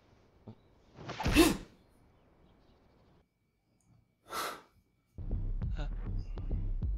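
A person sneezing once, loud and sudden, about a second in, followed by a short breathy noise a few seconds later. A steady low throbbing starts about five seconds in.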